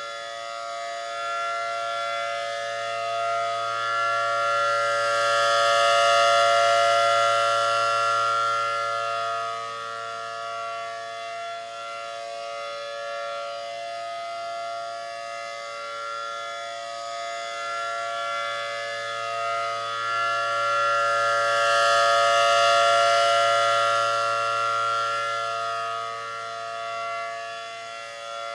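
ACA Allertor 125 outdoor warning siren sounding its steady Full Alert tone, a held chord that never changes pitch. The loudness swells and fades slowly, peaking about six seconds in and again about twenty-two seconds in.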